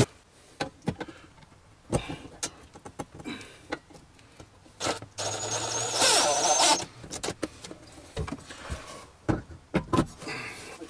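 A cordless drill runs for about two seconds around the middle, with a steady high whine as it bores or drives into the wooden compartment frame. Scattered knocks and clicks of parts and tools being handled come before and after.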